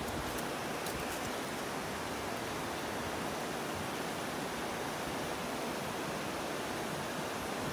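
Steady, even hiss of outdoor background noise, with a few faint clicks in the first second or so.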